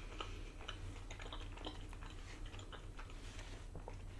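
A person chewing food with the mouth close to the microphone: soft, scattered wet mouth clicks over a faint low hum.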